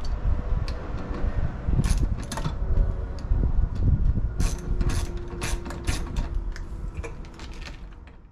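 Ratcheting nut driver clicking in short runs while the lug screws on an old meter socket's service conductors are loosened, over a steady low rumble.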